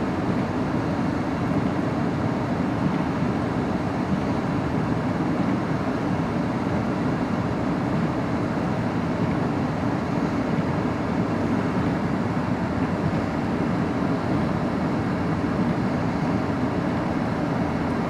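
Strong blizzard wind rushing steadily and buffeting the microphone, an even low noise with no breaks.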